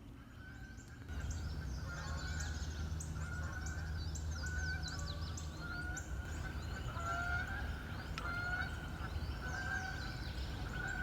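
Birds calling in chorus: many quick high chirps over repeated short mid-pitched calls. A steady low rumble comes in about a second in.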